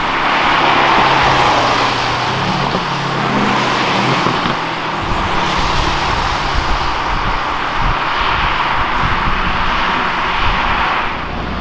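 Aston Martin sports cars accelerating away on a wet road: a steady hiss of tyres on the wet tarmac with the engines' note underneath, rising as they pull away a few seconds in.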